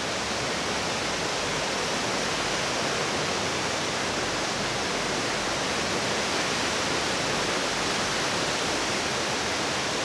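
A large waterfall pouring over a rock ledge: a steady, full rush of falling water.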